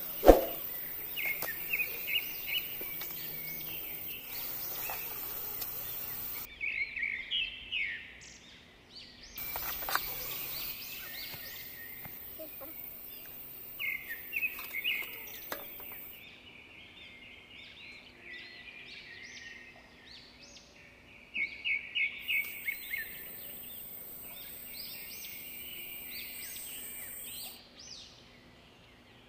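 Outdoor night ambience of high chirping calls repeating in short runs. A single sharp metal clank near the start is the steel spatula striking the metal cooking pot.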